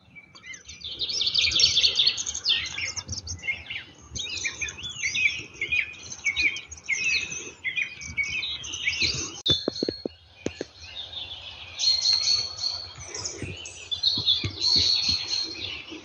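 A chorus of small woodland songbirds chirping and trilling over one another, with a short run of sharp clicks about ten seconds in.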